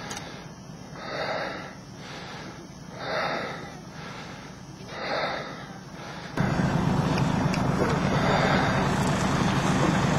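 A soft rushing noise that swells and fades about every two seconds, then, about six seconds in, a sudden switch to a louder steady low rumble of a coach bus engine idling.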